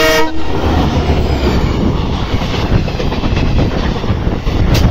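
A diesel locomotive's horn, a steady chord, cuts off just after the start; then a passenger train runs past close by, a loud steady rumble of wheels and coaches on the track.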